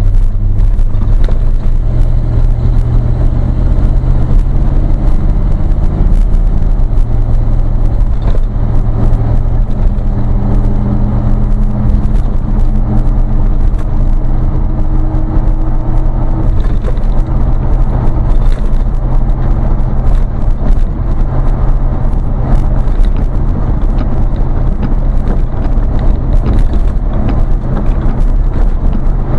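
Steady low drone of a vehicle's engine and exhaust while cruising, with tyre and road noise and small rattles throughout. The engine note shifts slightly about seven seconds in.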